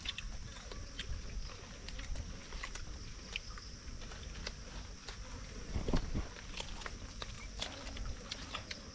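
Hands picking and tearing at a fire-roasted chicken and rustling leaf plates: scattered small clicks and crackles, with one louder rustle about six seconds in.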